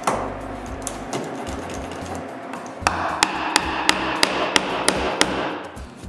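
Wood chisel being struck in a quick run of about eight sharp taps, roughly three a second, chopping to square up the corner of a mortise.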